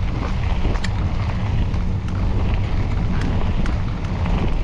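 Wind rushing over the camera microphone as a mountain bike is ridden along a trail, with a few scattered sharp clicks.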